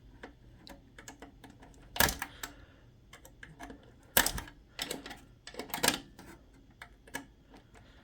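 Screwdriver tip clicking and scraping against a computer's coin-cell CMOS battery and its socket as it is pried out: a run of small sharp clicks, with three louder clacks about two, four and six seconds in.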